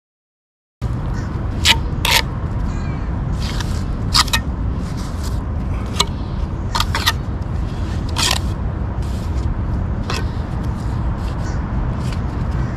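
Steel trowel scraping and tapping against wet rapid-set concrete and the mixing bucket: about a dozen short, sharp strikes, over a steady low rumble. The sound cuts in suddenly just under a second in.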